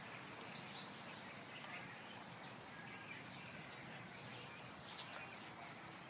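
Many birds chirping and calling, faint, with short chirps scattered throughout over a steady outdoor background hiss.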